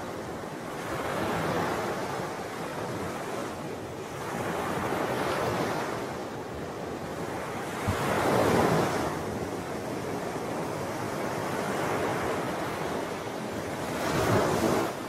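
Wind and small waves washing on a lagoon shore, swelling and easing every few seconds, loudest about halfway through and again near the end.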